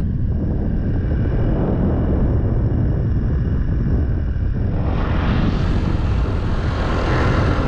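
Vehicle engine and road noise while driving, a steady low rumble.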